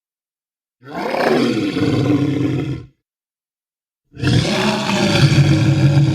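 Northern elephant seal calling twice: a deep, rough, pulsing roar lasting about two seconds, then after a short gap a second, longer one.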